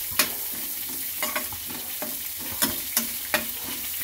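Oil sizzling steadily while a metal spoon stirs chopped garlic in a stainless steel frying pan, scraping and clinking against the pan about six times.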